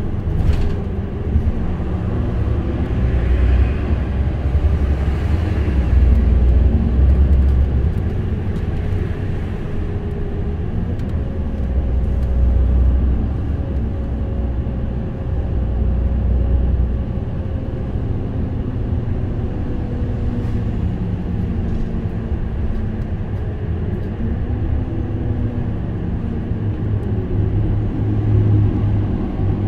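Mitsubishi Fuso Aerostar diesel city bus driving along, heard from a front passenger seat: a steady low engine drone whose note rises and falls as the bus speeds up and slows, over road and tyre noise.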